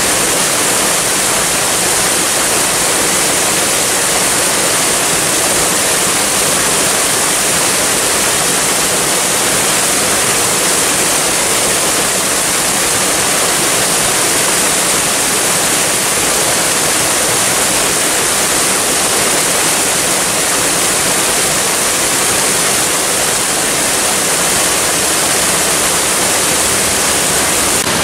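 Waterfall: falling water rushing in a steady, even hiss with no breaks.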